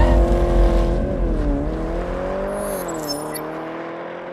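Car engine revving, its pitch dipping and rising several times as it slowly fades, over a deep rumble that dies away in the first couple of seconds.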